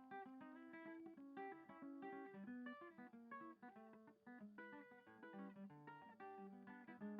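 Background music: an acoustic guitar picking a steady run of single notes and chords.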